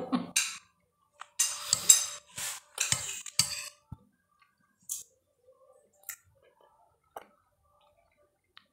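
Dishes and cutlery clinking and scraping in a few short runs, then scattered faint small clicks.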